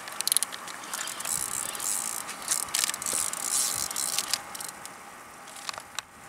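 Fishing reel being cranked in uneven bursts, a whirring, ratcheting sound, as a hooked fish is reeled in. The cranking eases off about two-thirds of the way through.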